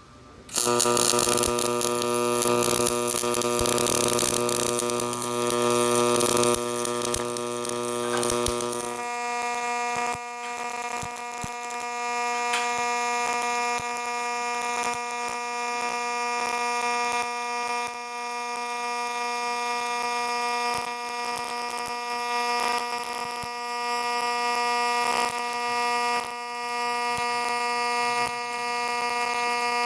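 Millermatic 255 MIG welding arc running a stringer bead, a steady buzz that starts suddenly about half a second in. About nine seconds in the pitch of the buzz changes and it carries on evenly.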